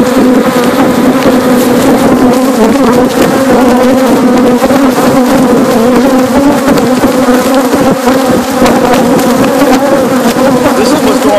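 Loud, steady buzzing of a dense swarm of honey bees flying right around the microphone: a disturbed colony whose nest in a wall cavity has been opened for removal.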